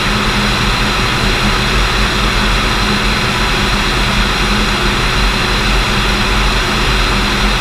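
Piston engine and propeller of a 1973 Cessna 210L Centurion II, a six-cylinder Continental IO-520, running steadily and loud with an unchanging low drone.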